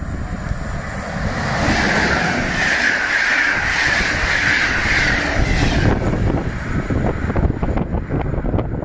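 PKP Intercity passenger train passing close at speed: a loud rush of wheels on rail with a high whine through the middle, then a rapid clatter of wheels over the rail as the coaches run by.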